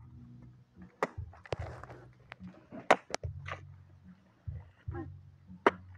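Machete blade chopping into the husk of a young green coconut: several sharp chops, the loudest about three seconds in.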